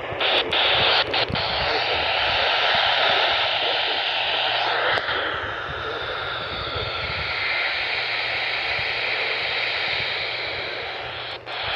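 Radio static: a steady hiss from a weather radio receiver with no broadcast coming through, with a few sharp clicks near the start and near the end.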